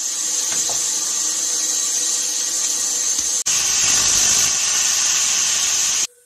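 Steady hiss of escaping steam, with faint whistling tones under it. It breaks off for an instant about halfway and cuts off suddenly near the end.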